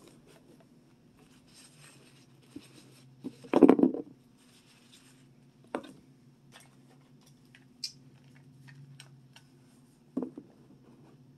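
Hard plastic toy pieces handled and set down on a tabletop: scattered clicks and rustles, with one louder knock about three and a half seconds in and sharp clicks near six and ten seconds, over a faint steady hum.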